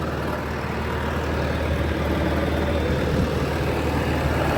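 Diesel engine of a 2020 Bobcat T-590 tracked skid steer running steadily, a constant low drone.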